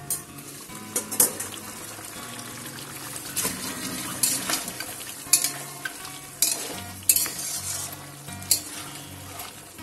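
Chicken sizzling in a metal kadai while a flat metal spatula stirs it, scraping and knocking against the pan about once a second.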